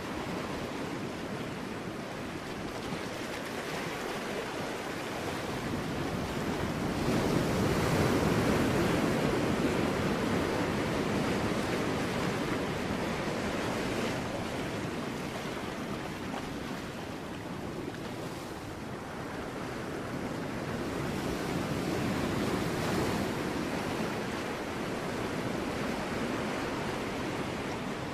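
Ocean waves breaking on rocks: a continuous rush of surf that swells louder twice, about eight seconds in and again past twenty seconds.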